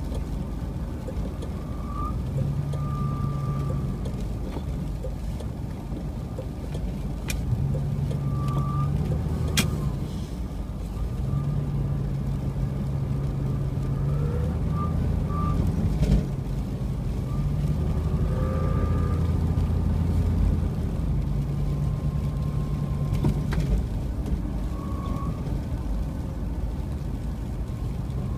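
Car driving, heard from inside the cabin: a constant low rumble of engine and road noise, with a low engine hum that rises and fades every few seconds. Faint short squeaks and a few sharp clicks come through now and then.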